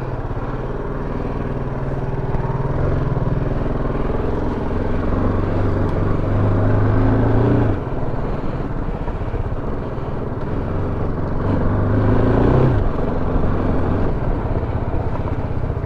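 Motorcycle engine accelerating while riding. Its pitch climbs and then drops sharply twice, about eight and about thirteen seconds in, as it shifts up a gear.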